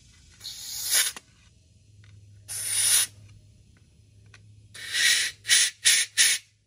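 Compressed-air blow gun blasting air through the ports of an ATV carburetor to clear out cleaner and debris during a carb clean: three longer hissing blasts, then three short quick ones near the end.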